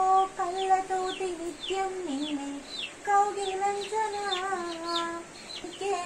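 A voice humming a slow tune in long held notes, with short, high, falling bird chirps about twice a second over it.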